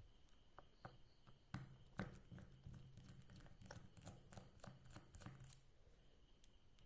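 Faint, irregular small clicks and taps of a precision screwdriver working the tiny screws out of a smartwatch case.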